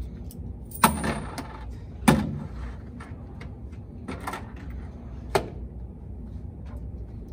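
Four sharp knocks and clatters over a steady low room hum, the two loudest about one and two seconds in: handling and movement noise from people shifting on folding chairs.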